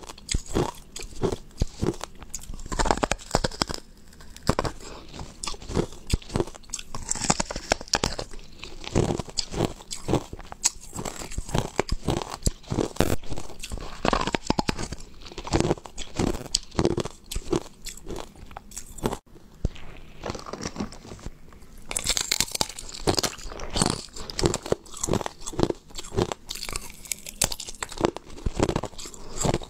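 A person biting and chewing chunks of clear ice: a dense, irregular run of sharp cracks and crunches, with a brief lull a little past the middle.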